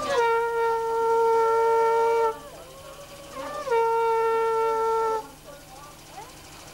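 Conch shell (shankha) blown in two long, steady blasts, each opening with a short drop in pitch. The first is held about two seconds and the second about a second and a half. The blasts sound as part of a Bengali Hindu wedding rite.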